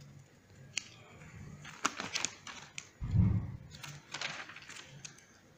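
Pages of a thick National Electrical Code book being turned by hand: paper rustling and pages flicking and slapping down. There is a short, loud, low thump about three seconds in.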